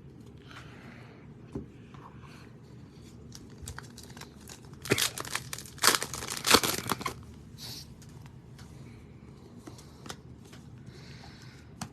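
Trading-card pack wrapper being torn open and crinkled by hand. A burst of tearing and crinkling comes about five to seven seconds in, with light rustling and clicks of handling around it.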